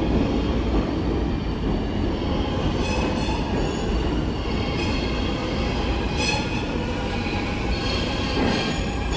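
New York City subway train running between stations: a steady rumble of wheels on the track, with high-pitched wheel squeal that comes and goes and a few brief clicks.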